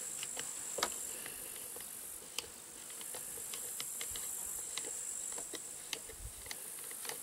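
Steady high-pitched chirring of insects, with scattered small clicks and light taps as hands handle the small parts of a disassembled chainsaw.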